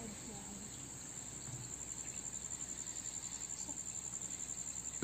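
Steady, high-pitched chirring of insects.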